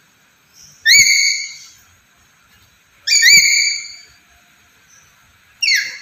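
Black-capped lory giving three loud whistled calls, each swooping sharply up in pitch and then holding a steady note for about half a second.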